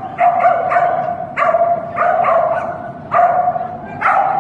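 Icelandic sheepdog barking repeatedly while running, about eight sharp, high barks coming in quick bunches of two or three.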